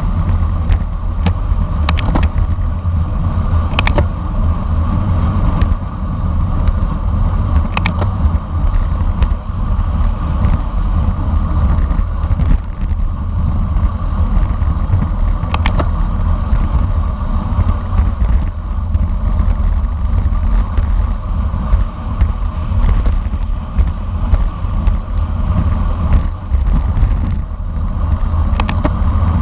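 Wind rushing over the microphone of a bicycle-mounted camera at race speed, with tyre and road noise. Scattered short clicks run through it.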